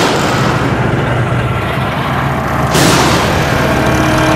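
Heavy cinematic boom hits over a steady low drone: the tail of one fades out at the start, and a second lands about three seconds in as the next title appears.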